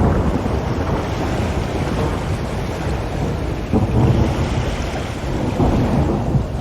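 Loud, steady rumbling noise with no clear tone, swelling briefly about four seconds in.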